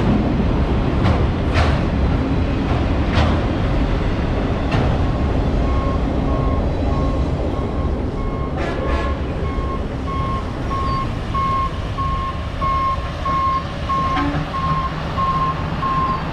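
The tail end of a freight train of autorack cars rolling past, wheels clacking over rail joints, then a rail maintenance machine on the next track sounding a repeating travel-alarm beep, one or two beeps a second. A low engine hum from the machine comes in near the end.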